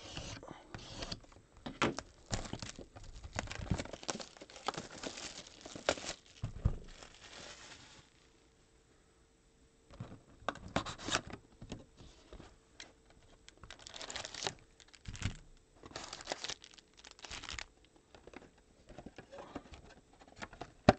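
Plastic shrink wrap on a trading card hobby box being slit and torn off, crinkling continuously for about eight seconds. After a short pause come separate rustles as the cardboard box is opened and its foil packs handled.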